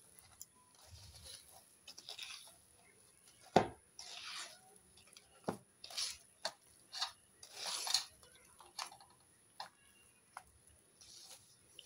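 Ghee and powdered sugar being creamed by hand in a stainless steel bowl: soft, quiet swishes of the mixture with scattered sharp clicks and taps against the steel.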